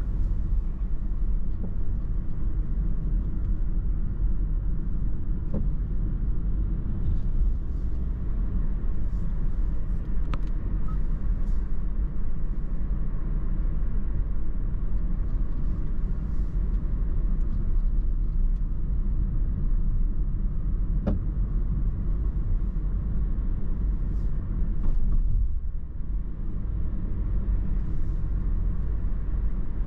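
Steady low rumble of a car driving at road speed, engine and tyre noise heard from inside the cabin, with a few faint ticks. The rumble dips briefly a little before the end.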